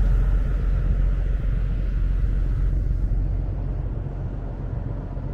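Steady low rumble and hum of the ferry Hamayuu's engines and machinery, heard from the open deck. A higher hum runs over it and fades out about three seconds in.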